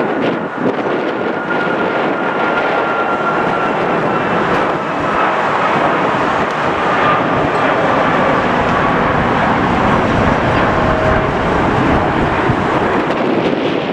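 Boeing 737 MAX jet airliner climbing out after takeoff, its CFM LEAP-1B turbofans running: a loud, steady jet roar with a faint whine that slowly falls in pitch as the plane passes.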